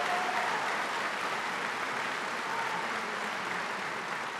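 A large indoor audience applauding steadily, gradually growing a little quieter.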